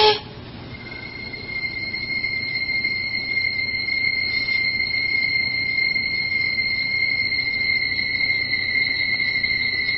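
A steady high-pitched tone with a fainter tone an octave above it. It fades in over the first couple of seconds, then holds at one unchanging pitch.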